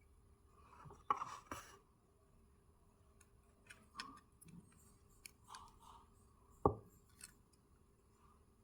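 Faint scraping and scattered sharp clicks of a small Dell laptop fan being handled while a thin rolled strip is worked into its motor's bearing sleeve to clean out dust. The loudest clicks come about a second in and near seven seconds, over a faint steady hum.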